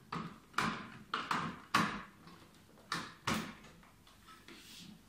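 Hand-push vegetable seeder's hopper parts being handled and pushed into place: about six sharp clacks and short scrapes of hard metal and plastic parts in the first three and a half seconds, then fainter fiddling.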